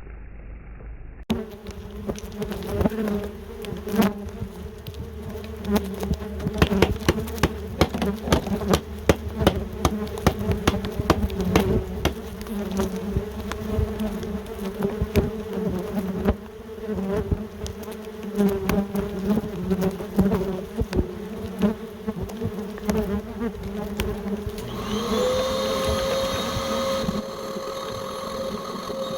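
A mass of yellow jackets buzzing from a disturbed nest, a dense hum broken by many sharp ticks. Near the end a steadier, higher-pitched machine-like hum sets in.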